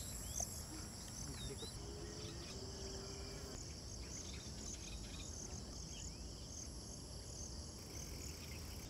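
Steady, high-pitched chorus of insects, with a few short bird chirps over it.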